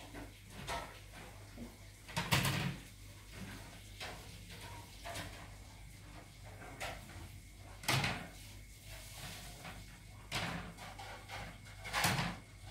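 A cat eating rice mixed with wet cat food from a plastic bowl: soft chewing with a scattering of sharp clacks, the loudest about two, eight and twelve seconds in, over a low steady hum.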